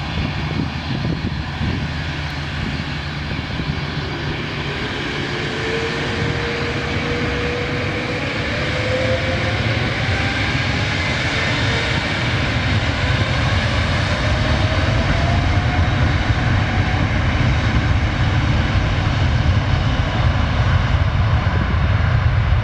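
Airbus A330-900neo's Rolls-Royce Trent 7000 turbofans at takeoff thrust as the jet starts its takeoff roll, with a whine rising in pitch and the engine noise growing louder as it comes past.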